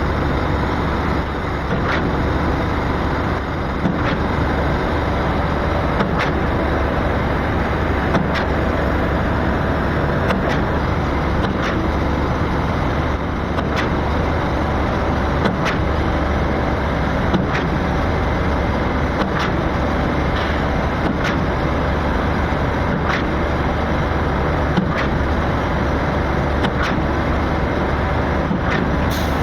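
Concrete pump running steadily with its engine under load, with a short sharp knock about every two seconds, in time with the pump's strokes.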